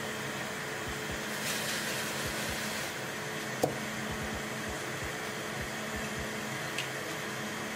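Fume extractor fan running steadily with a faint hum. A sharp click comes about three and a half seconds in, with a few soft knocks from handling on the bench.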